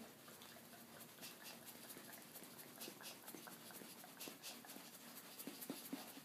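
Bullmastiff scratching at its neck with a hind leg: faint, quick rasping strokes of claws through fur, with a few louder short knocks near the end.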